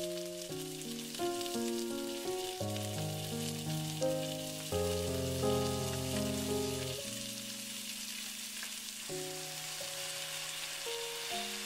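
Salmon fillets sizzling steadily in hot oil in a frying pan, over background music of held notes that change pitch every second or so.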